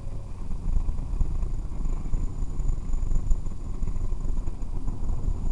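Low, uneven rumble of a car's engine and running gear heard from inside the cabin while it rolls slowly, with a faint steady high whine over it.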